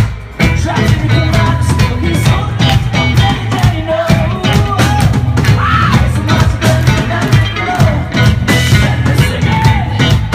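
Indie rock band playing live: electric guitar, bass and drums keeping a steady beat. The sound drops briefly right at the start, then the full band comes back in.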